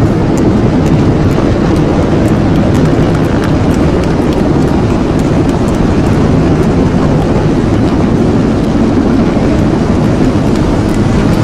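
Military aircraft flying over, a loud, steady engine noise that neither rises nor fades.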